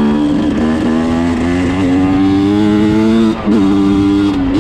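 Two-stroke Yamaha dirt bike engine running under way, its revs climbing slowly for about three seconds, dipping briefly, then holding steady.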